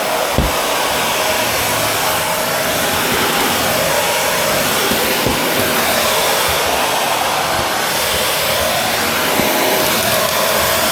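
Shark Navigator Lift-Away upright vacuum cleaner running steadily on a test run with freshly washed filters, a constant rushing of air over the motor with a faint steady whine. A couple of dull knocks sound as it is pushed over the floor.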